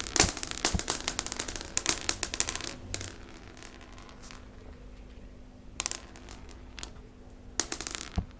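Recording of many small hard beads dropping and scattering on a hard floor, as a sound effect for pills falling: a dense rattle of clicks for about three seconds, then two short, smaller scatters near the end.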